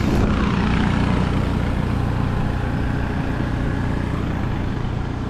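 Small boat engine running steadily, an even low hum with no change in speed.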